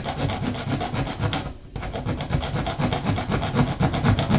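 A bare hacksaw blade sawing through a nail in quick back-and-forth strokes, cutting the nail that fastens a plastic outlet box inside the wall, with a brief pause about one and a half seconds in.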